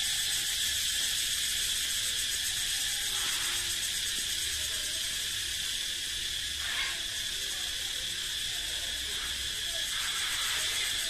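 Cicadas calling in a steady chorus: a continuous high, shrill buzz that holds at an even level throughout.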